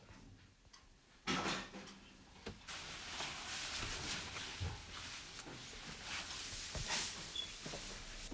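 Sharp knock a little over a second in, a smaller one about a second later, then steady rustling with small clicks and knocks, like someone moving about in a hallway and handling things.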